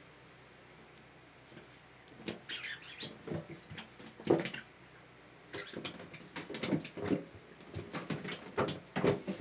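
A cat's paws and claws scrabbling and skidding on an empty bathtub while it bats a small dog toy about, with quick scratches and knocks of the toy against the tub. These start about two seconds in, and the loudest comes a little after four seconds.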